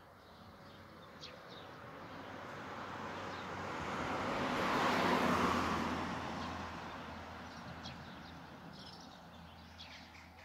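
A road vehicle passing, its engine and tyre noise swelling to a peak about halfway and fading away again. Faint bird chirps come through at the start and end.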